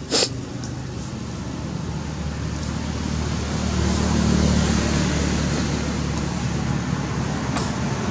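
A motor vehicle's engine running, with a low hum that grows louder over the first few seconds and then holds steady. There is a sharp click just after the start.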